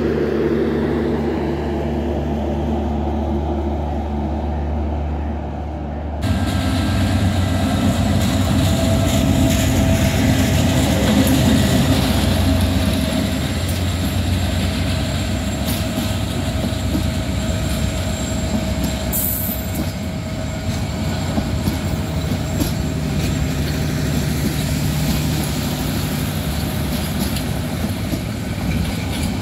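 Diesel-hauled passenger train passing close by: the locomotive engine runs while steel wheels rumble and clatter over the rails, with some thin wheel squeal. About six seconds in, a steadier, lower rumble cuts abruptly to this louder, closer pass.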